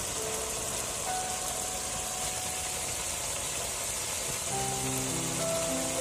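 A steady hiss of a broth bubbling and simmering in a wok, under background music of slow, held notes.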